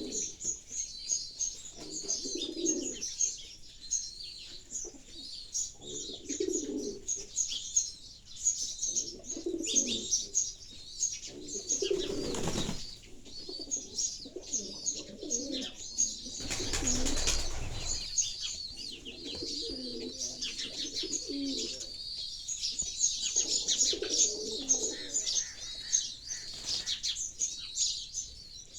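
Pigeons cooing in repeated low phrases about every two seconds, under constant high chirping of sparrows. Two short rushes of noise cut across them, one about twelve seconds in and a longer one around seventeen seconds.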